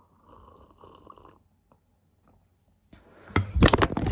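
A person breathing heavily right against the microphone. Faint breath noise gives way, about three seconds in, to loud, muffled, irregular puffs.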